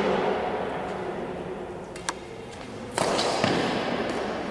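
Badminton racket striking a shuttlecock: a single sharp crack about two seconds in, then louder hits about a second later that echo through the hall.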